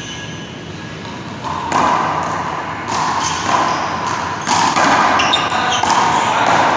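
One-wall handball rally: the small rubber ball is slapped by hand and smacks off the wall and floor in a string of sharp hits, starting a couple of seconds in.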